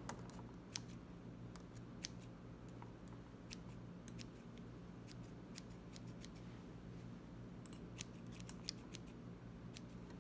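Thinning shears snipping at a fly's blue Flashabou wing: a string of faint, sharp, irregular clicks.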